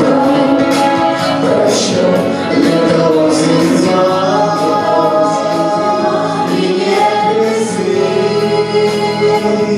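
Music with a group of voices singing together, like a choir, without a break.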